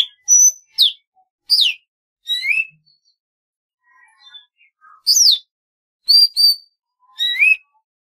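Golden-fronted leafbird singing: a run of loud, clear whistled notes, some sweeping sharply downward and some rising, given in short phrases with a pause about midway.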